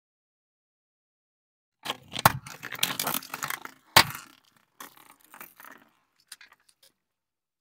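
A car tyre rolling over plastic pudding cups and crushing them, starting about two seconds in: a dense run of crackling plastic and wet squelching, with two sharp cracks. Smaller scattered crackles follow as the last cups give way.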